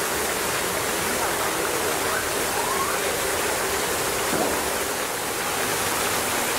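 Steady rushing of running water, with a few faint, short rising calls now and then.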